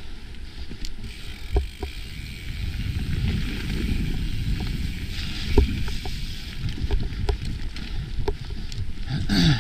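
Mountain bike riding fast down dirt singletrack: tyres rolling over the dirt with a low rumble and a hiss, and scattered sharp knocks and rattles from the bike over bumps, with a brief louder rush near the end.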